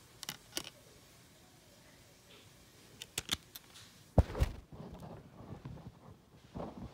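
Sharp plastic clicks from a CD jewel case being handled: two near the start and a quick cluster about three seconds in. Just after four seconds comes a heavier double thump of the phone being moved, followed by softer handling rustle.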